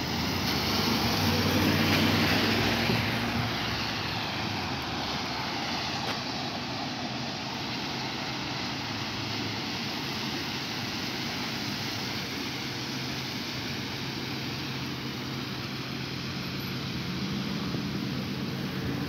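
Traffic on a wet street: a pickup truck passes close about two seconds in with a loud hiss of tyres on wet pavement and its engine note, then a steady wash of tyre spray and low engine hum from more cars going by.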